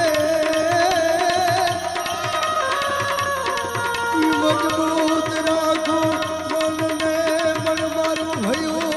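Indian devotional folk music, a bhajan in dayro style: a steady hand-drum beat under a held, slightly wavering melody line, with no words.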